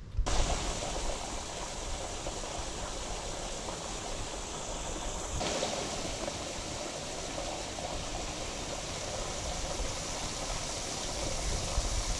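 Running water, a steady rushing like a fountain or stream, that starts and stops abruptly.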